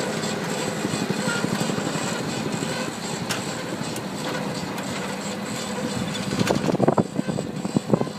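A farm machine's engine runs steadily under a dense rattle. Several sharp knocks come near the end.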